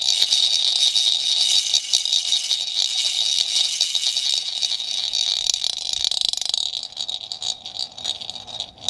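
A ceramic ball rattling and rolling around inside a plastic cup: a dense, fast clatter of clicks that thins out to scattered clicks about seven seconds in.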